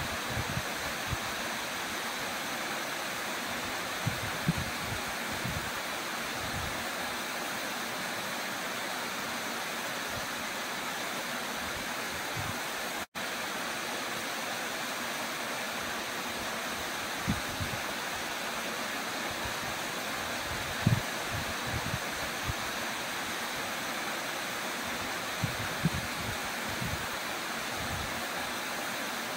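Steady rush of a waterfall plunging into a rock pool, broken by a few brief low thumps. The sound drops out for an instant about thirteen seconds in.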